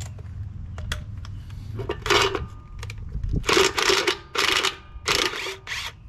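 Yellow cordless drill-driver run in about five short bursts, starting about two seconds in, as it drives a plug or bolt into the tiller's gearbox case.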